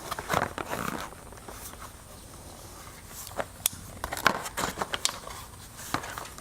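Packaging of a new Bosch 13-inch wiper blade being opened by hand: crinkling with scattered sharp clicks and snaps.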